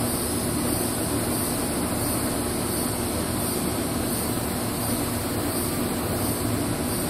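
Steady rushing background noise with a faint low hum underneath, unchanging throughout, with no distinct knocks or clinks.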